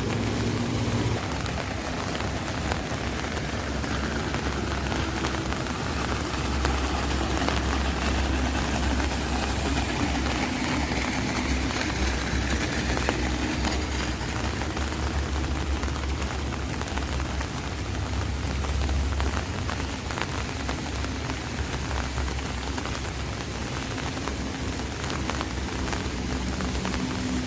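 Rain falling on an umbrella: a steady patter of many small drop hits. A low rumble runs underneath and is strongest in the middle stretch.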